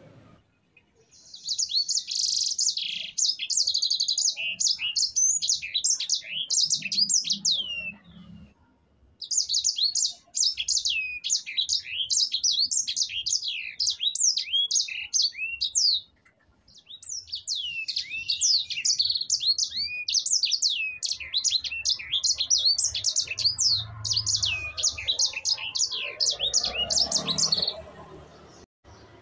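Grey singing finch (sanger) singing a fast, continuous rolling song of quick, sharply sweeping high notes, in three long bouts separated by short pauses.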